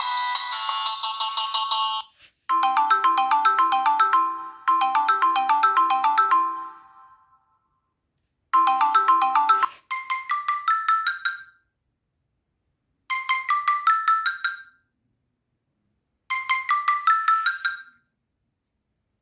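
Samsung Galaxy S3 ringtones and notification tones played one after another. The end of one melodic ringtone gives way to a mallet-like melody over a lower bass line in two phrases. Then comes a short chime of a few notes, played three times with pauses between.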